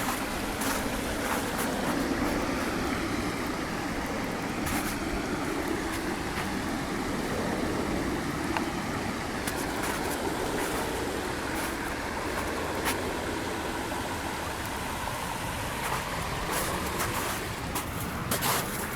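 Steady rushing of running water from a small waterfall, with a few short clicks scattered through it.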